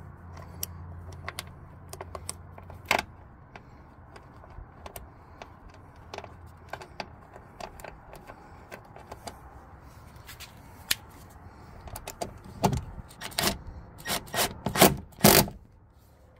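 Small metallic clicks and rubbing from a door jamb switch and its 10 mm bolt and washer being turned in by hand, with a run of louder clicks and knocks in the last few seconds.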